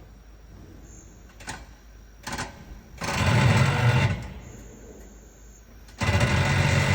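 Rear brake pads of a Mitsubishi Outlander PHEV creaking against the discs as the car pulls against the set mechanical handbrake in Drive under light throttle. There are two bursts, one about three seconds in lasting about a second, and another starting about six seconds in. The owner blames the aftermarket rear pads, which are too hard, and the handbrake also holds weakly.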